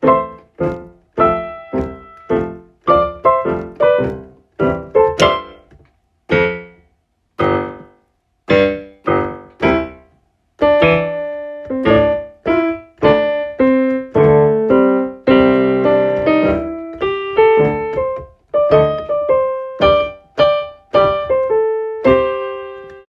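Solo piano music: a slow run of single struck notes and chords, each fading away, with short pauses between phrases. It stops abruptly at the end.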